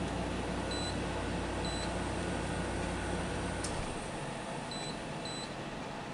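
Tosot Tranquility 8,000 BTU window air conditioner running with a steady fan noise, giving four short high beeps as its temperature setting is changed. A low hum stops after a click about four seconds in.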